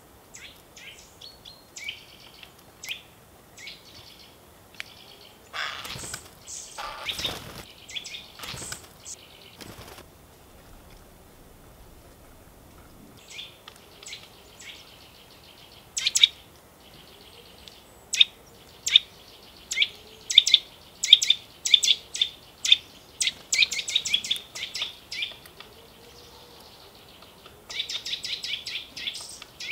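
Woodland songbirds calling in many short, high chirps. A few harsher, fuller sounds come about six to nine seconds in, and a long run of sharp, loud chirps and a fast chatter fill the second half.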